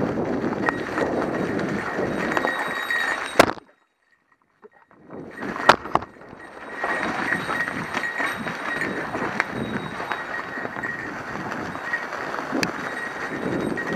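Mountain bike riding over a rough trail: steady tyre noise with rattles and small knocks from the bike. About three and a half seconds in, a sharp knock is followed by a second and a half of near silence, and then the noise comes back.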